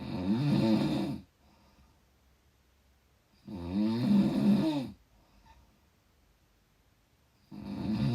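A sleeping person snoring: a loud snore about every four seconds, each lasting about a second and a half and followed by a soft breath. Two full snores, and a third begins near the end.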